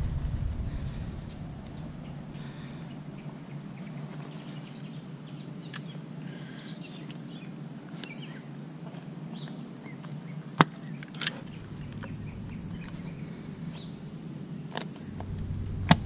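A few sharp plastic clicks, about ten and a half, eleven and sixteen seconds in, from hands working a plastic wheel center cap at the hub, over a steady low hum and faint bird chirps.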